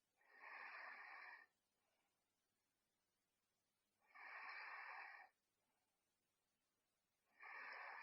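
A sleeping girl's soft snoring: three breathy, hissing snores about every three and a half seconds, each lasting about a second, with quiet between them.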